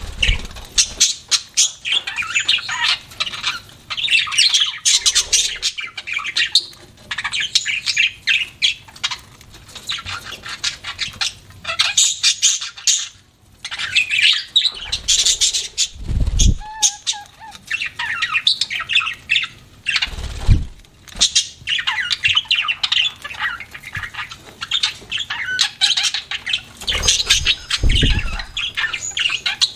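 Pet budgerigars (parakeets) chattering and squawking without a break, mixed with many short clicks. A few deep thumps come about halfway through and again near the end.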